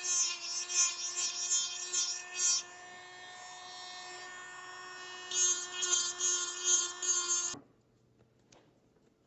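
Small hand-held rotary motor with a burr, whining steadily while it grinds into an acetate spectacle frame's nose bridge in quick repeated strokes. Midway the grinding stops for about two and a half seconds while the motor keeps running, then resumes. Near the end the motor cuts off abruptly, and a couple of faint clicks follow as the frame is handled.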